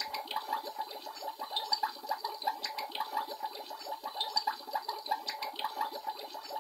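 Water in the Magic Mixies toy potion cup bubbling steadily, a fast, dense run of small gurgling pops.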